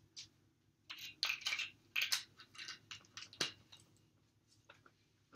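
Faint handling noise from a small plastic bottle of cooking oil being handled and capped: a scatter of soft clicks and rustles, ending in one sharper click about three and a half seconds in.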